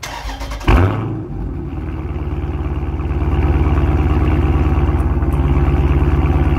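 Car engine starting at the exhaust: a short crank, a quick rev as it catches about a second in, then a steady, evenly pulsing idle out of the tailpipe.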